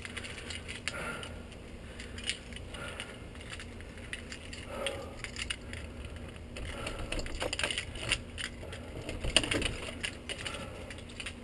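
A lever door handle and latch clicking and rattling as a wooden glass-paned door is worked open, among scattered small knocks and clicks that come thickest in the second half.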